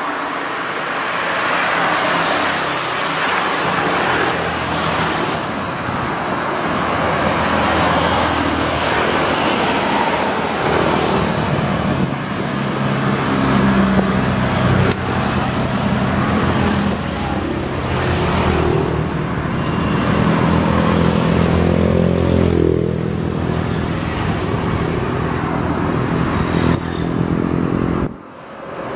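Road traffic going by, with the engine of a large vehicle growing loud and close from about halfway through; its pitch slides about two-thirds of the way in as it passes. The sound drops away briefly just before the end.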